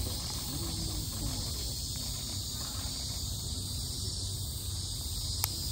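Steady, high droning of cicadas over a low rumble of outdoor background noise, with faint distant voices early on and a single short click near the end.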